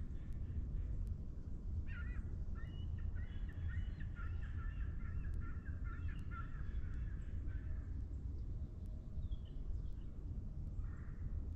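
Wild birds calling in a forest: a run of rapid, repeated calls from about two to eight seconds in, and another short call near the end, over a steady low rumble.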